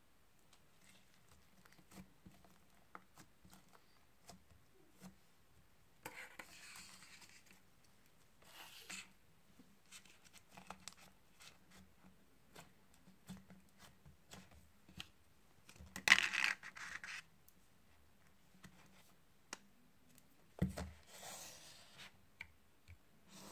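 Faint handling sounds of slime and its plastic containers on a table: scattered light clicks and taps, with a few brief rustling scrapes, the loudest about sixteen seconds in.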